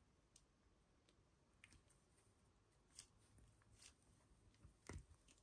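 Near silence, with a few faint clicks of hands handling a soft gel-haired toy figure, the last and loudest with a soft thump near the end.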